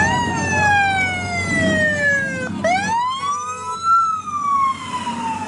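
Emergency vehicle siren wailing. It rises quickly and then slides slowly down in pitch, rises again about halfway through, and begins another slow fall.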